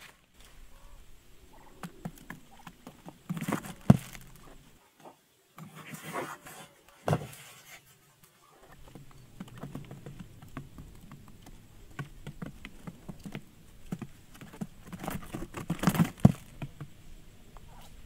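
Quail pecking grain off a cardboard trap floor: irregular light taps and patter, with a few louder clusters of knocks.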